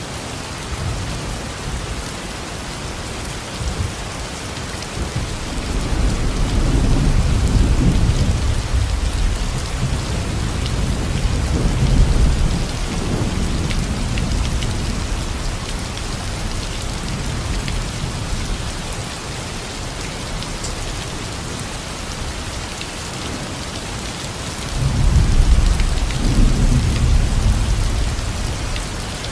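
Steady, heavy rain falling on surfaces, with low rolling thunder that swells and fades three times: a few seconds in, about midway through, and near the end.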